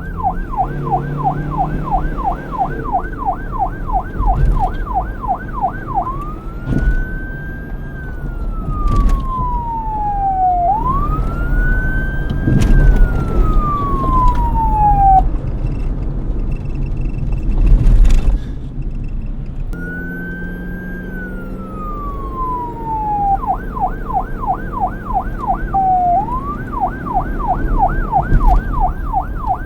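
Police car siren switching between a fast yelp, about three to four sweeps a second, and a slow wail that rises and falls over several seconds, over low traffic rumble. The siren drops out for a few seconds in the middle, where a loud burst of noise stands out, then comes back as a wail and returns to the yelp.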